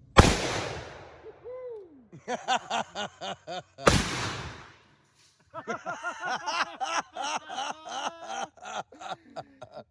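.454 Casull revolver firing two shots about four seconds apart, each a sharp report with a long echoing tail. Voices exclaim between and after the shots.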